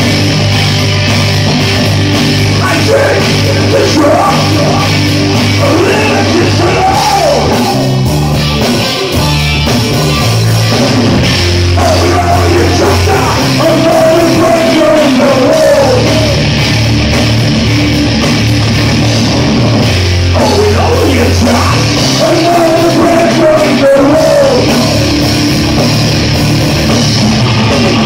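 Rock band playing live: distorted electric guitars, bass guitar and drums, with a stepping bass line under a melody that swoops up and down.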